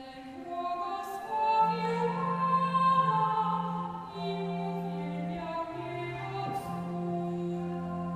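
Church organ and oboe playing a slow sacred-song introduction: long held low organ notes under a smooth melody line.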